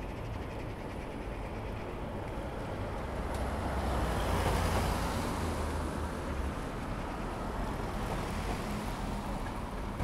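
Steady outdoor rumble and hiss, swelling about four to five seconds in and easing off again.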